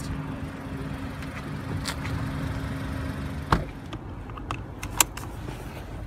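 A steady motor-vehicle hum, as of a car idling, that stops abruptly about three and a half seconds in, followed by the rustle and several sharp clicks of a car seat belt being pulled across and buckled, the loudest click about five seconds in.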